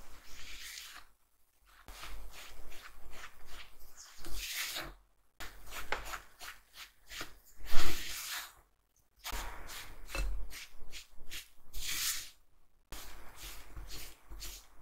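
Silicone spatula cutting and scraping through flour and butter in a glass bowl, in quick repeated strokes with short pauses, as the mix turns into crumbly tart dough. One louder knock stands out about halfway through.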